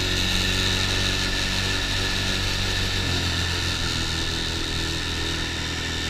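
ATV motor running steadily; its note shifts slightly about three seconds in.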